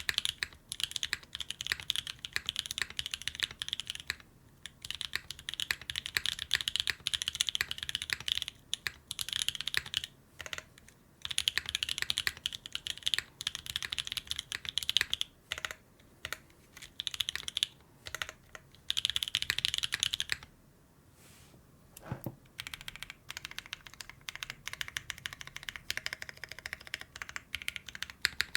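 Typing on a Graystudios Think6.5v2 mechanical keyboard with lubed and filmed Holy T1 tactile switches on an FR4 plate, under GMK keycaps. The keystrokes come in quick runs broken by short pauses, with a longer break of about a second and a half past the two-thirds mark.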